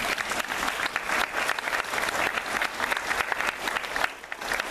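An audience of schoolchildren applauding: many hands clapping irregularly and steadily, thinning briefly near the end.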